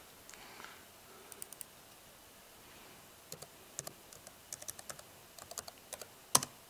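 Keys tapped on a laptop keyboard, typing a password into an SSH login box: a few taps, then a quicker run of them, and one louder click near the end.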